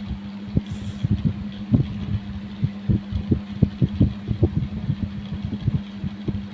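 Coin scraped in repeated short strokes over the skin of the chest in kerokan, about two or three strokes a second, irregularly spaced, over a steady low hum.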